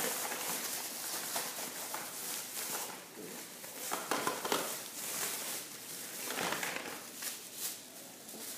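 Thin plastic shopping bag rustling and crinkling continuously as it is handled and shaken to empty out the items inside.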